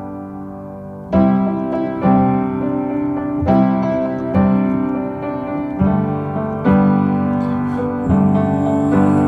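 Background music with no singing: piano chords struck about once a second, each ringing on into the next.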